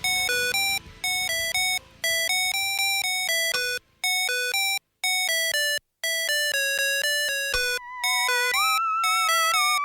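Electronic intro music: a bright synthesizer melody of short, evenly paced notes, about four a second. Near the end a held, wavering lead tone comes in over it.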